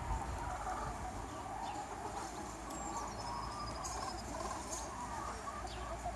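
Chickens clucking in short, scattered calls, with no crow. Faint high chirps from small wild birds come through now and then.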